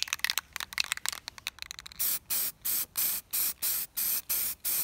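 Aerosol rattle can of red oxide primer, first shaken with its mixing ball clattering rapidly, then sprayed from about two seconds in as short hissing bursts, roughly three to four a second.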